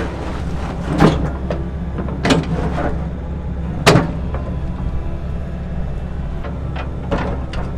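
Diesel excavator engine running steadily under load while its bucket breaks up a concrete wall, with sharp cracks and knocks of concrete breaking and striking about four times, the loudest about four seconds in.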